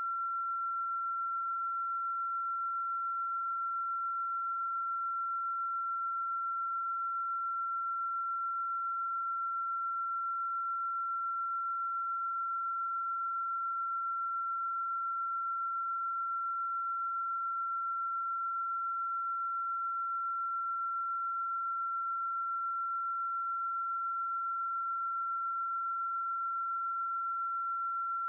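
A steady electronic tone at one high pitch, unbroken and unchanging in level.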